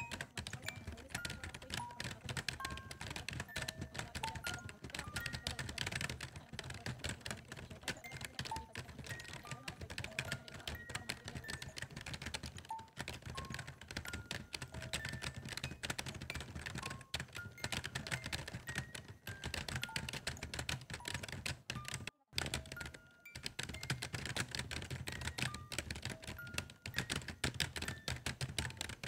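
Dense, continuous rapid clicking and tapping, with short, soft single notes at different pitches scattered over it. The sound cuts out briefly about 22 seconds in.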